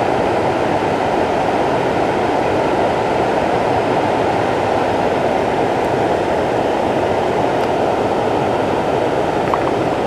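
Water pouring over a low river weir, a steady, even rushing with no change.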